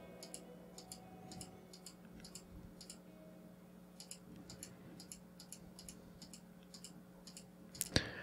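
Faint, irregular clicking of a computer mouse, a few clicks a second, as short brush strokes are drawn, over a low steady hum.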